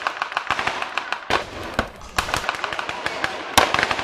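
Rapid, irregular blank gunfire from a mock battle, many overlapping sharp shots. It pauses briefly about a second in, and there is one louder bang a little before the end.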